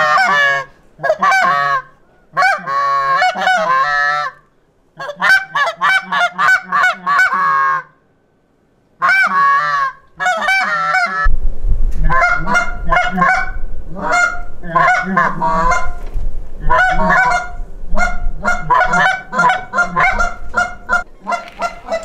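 Canada geese honking and clucking in quick, overlapping runs, with a short silent gap about eight seconds in. From about eleven seconds a low rumble runs underneath the calls.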